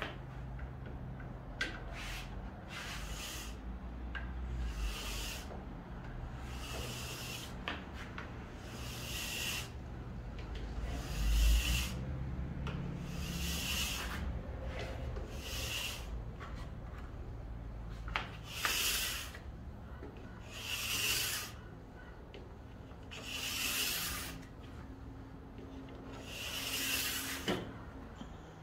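A wetted diamond file in an edge-guide tool drawn along a ski's steel edge. It makes over a dozen short rasping strokes a second or two apart, one direction only, as the edge is sharpened.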